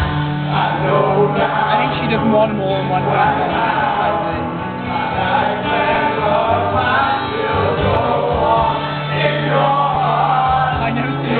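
Loud music playing with a group of voices singing along together.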